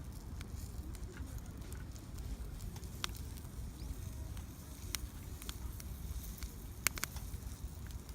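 Small wood fire crackling: scattered sharp pops over a low, steady rumble, with the loudest pair of pops close together near the end.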